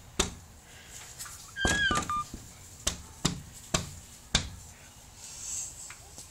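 A toddler's hands slapping against a glass window pane: several sharp, separate smacks, most of them between about three and four and a half seconds in. A short high squeal comes about two seconds in.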